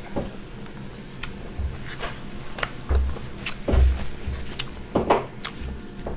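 A person eating seafood close to the microphone, chewing and biting, with irregular short clicks and crunches and low thuds in between.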